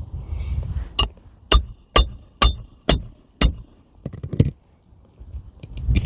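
Hammer driving a roofing nail into a shingle: six ringing metal strikes, about two a second, followed by a few lighter taps.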